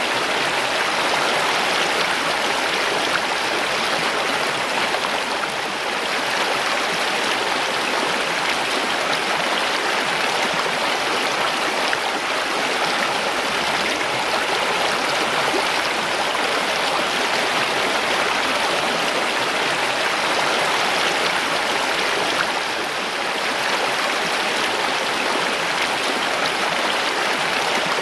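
Mountain stream rushing and gurgling steadily over rocks.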